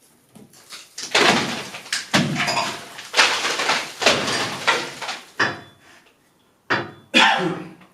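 Old plaster breaking away from a wall and falling in a run of heavy crashes, about seven in all, chunks and debris clattering down onto the floor.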